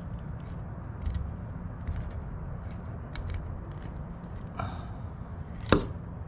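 Fillet knife slicing a bluefish fillet away along the rib cage: faint scraping and small clicks of the blade against the bones, with one sharper click near the end.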